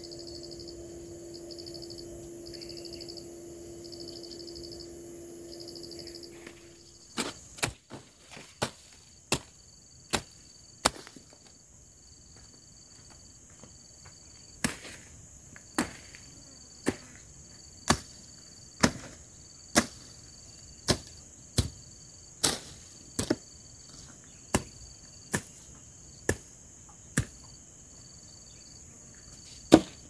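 Machete strokes chopping weeds and brush while clearing land: sharp, single chops starting about seven seconds in, then coming steadily about one a second. Insects chirp in pulses and trill steadily throughout, over a steady low hum in the first seven seconds.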